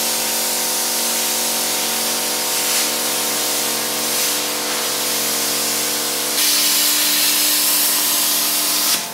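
Steel being cut in a metalworking shop: a steady loud hiss with a low hum of several steady tones under it. About six seconds in the hiss gets louder and brighter.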